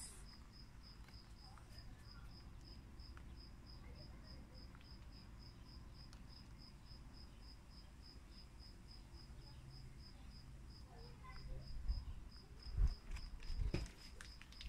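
A cricket chirping steadily in quick, evenly spaced high pulses, about five a second. A few low bumps near the end.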